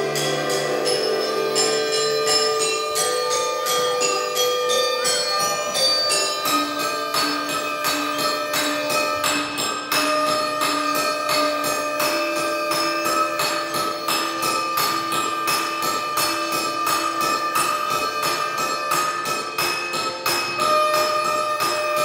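Music: quick, evenly repeated percussive strikes, about three to four a second, over sustained held notes that step to new pitches a few times.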